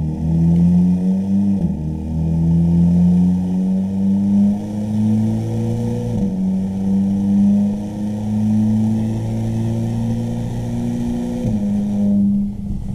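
Volkswagen Mk5 GTI's turbocharged 2.0-litre four-cylinder, heard through a Manzo cat-back exhaust at the rear bumper under light acceleration. The exhaust note climbs in pitch and drops back at each of three upshifts, about 2, 6 and 11.5 seconds in.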